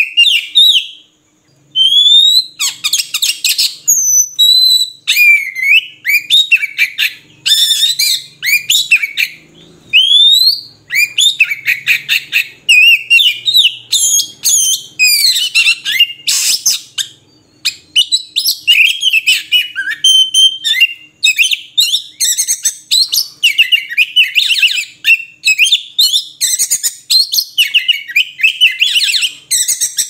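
Oriental magpie-robin singing: a long, nearly unbroken run of varied high whistles, slurred glides and rapid trills, with one short pause about a second in.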